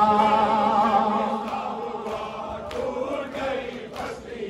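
Noha chanting by men's voices without instruments: a long held note with a wavering pitch that fades away over about two seconds, followed by quieter voices and a few soft slaps of matam (chest-beating).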